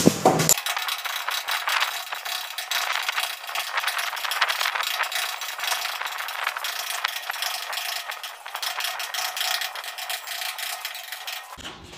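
Hammer and chisel chipping at a plastered wall in a rapid, rattling run of taps, chasing out a recess for the basin's adhesive. The sound has no bass: everything low is cut off until near the end.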